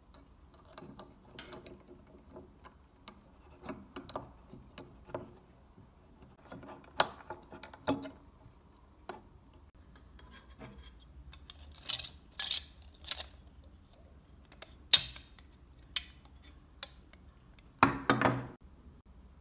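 Small parts of a scale-model Ford F-150 pickup being handled and fitted together by hand: scattered light plastic clicks, taps and rubbing, with a sharp snap late on and a louder crunch of clicks near the end as the body is pressed into place.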